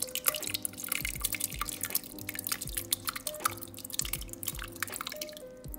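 Wet cooked apple mash and juice pouring from a bowl into a cheesecloth-lined bowl, with a rapid patter of splashes, plops and drips that thins out near the end. Soft background music plays underneath.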